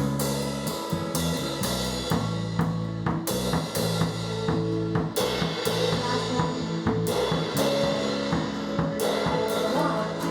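A band playing a song together: a full drum kit with bass drum, snare, hi-hat and cymbal crashes over sustained electric guitar and bass chords.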